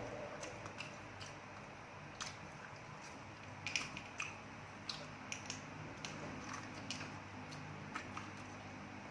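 Someone eating: irregular small clicks and crunches, about a dozen over several seconds, over a low steady hum.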